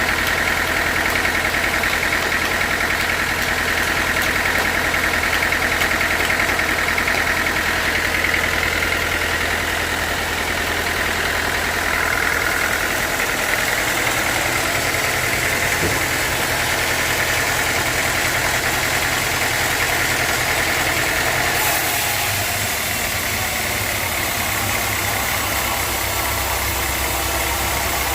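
Sawmill machinery running steadily, an engine hum with a higher whine over it. The engine note shifts to a new pitch about halfway through and again near the end.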